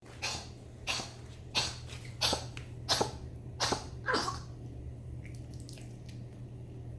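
Senior Chihuahua coughing, a run of about seven short hacking coughs roughly two-thirds of a second apart that stops about four and a half seconds in. It is a cough caused by acid reflux.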